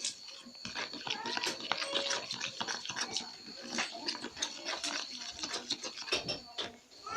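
Spoon stirring sticky glue slime in a container: a quick, irregular run of wet squelches and clicks.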